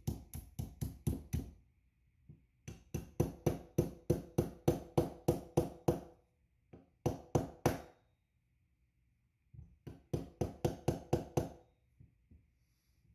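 Small plastic-faced hammer tapping the upper hammer retaining pin into a Magnum Research Desert Eagle frame to seat it flush: four runs of quick light taps, about five a second, with short pauses between them.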